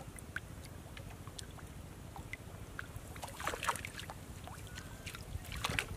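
Small splashes and drips of water as a wet cast net is dipped and gathered in shallow pond water, in two short clusters about halfway through and near the end, over a low steady rumble.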